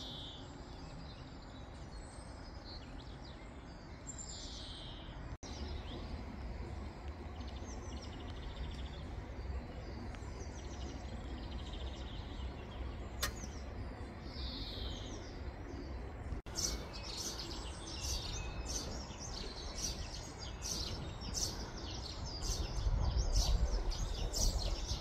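Several small birds chirping and singing, the calls growing busier and higher in the second half, over a steady low background rumble that swells near the end.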